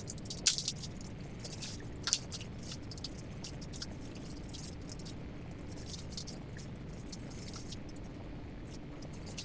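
Waterproof tent fabric rustling and crinkling as it is unfolded and lifted, with two sharper crackles in the first couple of seconds, over a steady low background hum.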